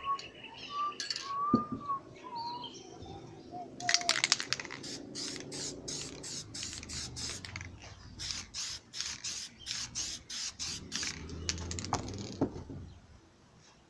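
Aerosol spray-paint can sprayed in quick short bursts, about three a second, for several seconds. Before that comes a whistled, bird-like call gliding up and down.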